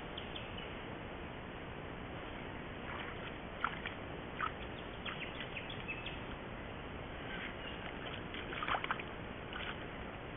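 Sambar stag moving in a muddy wallow and lying down in it: a few short splashes and sloshes of mud and water, the loudest about three and a half, four and a half and eight and a half seconds in, over a steady trail-camera hiss.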